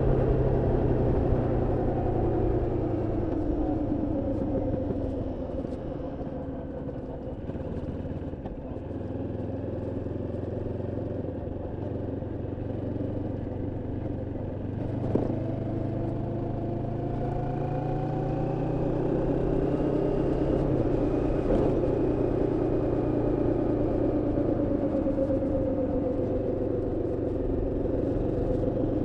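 Moto Morini X-Cape 649's parallel-twin engine under way during break-in, held to moderate revs. It eases off with falling pitch a few seconds in, then pulls back up through the gears with rising revs. There is a short click about halfway.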